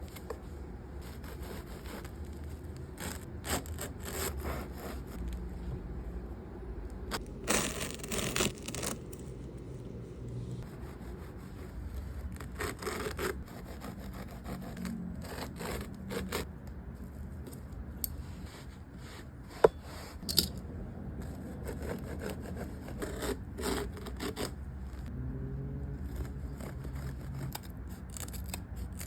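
Intermittent scraping and rubbing of hand tools cutting and working carpet during a carpet repair, over a low steady rumble, with two sharp clicks about two-thirds of the way through.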